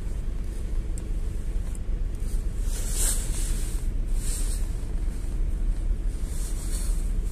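A GAZ-A68R52 City minibus riding along, heard from inside: a steady low engine and road rumble, with short hisses about three seconds in, again a second later and near the end.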